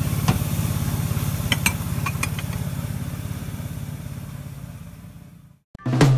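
A small engine running steadily with an even low throb, fading out over about five seconds, with a few light clinks of plates partway through. After a short silence, music with a drum beat starts near the end.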